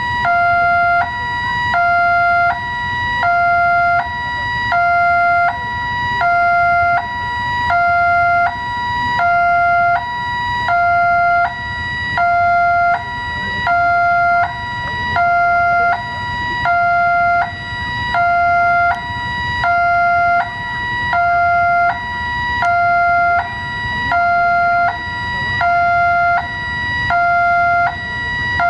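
Railway level-crossing warning alarm sounding steadily, a lower and a higher electronic note alternating about every three-quarters of a second, the signal that a train is approaching.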